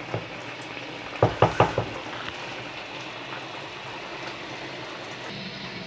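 Potato and eggplant curry simmering in a large aluminium pot with a steady, even sizzle as the last of its water cooks off. About a second in, three quick knocks sound as the wooden spoon strikes the pot.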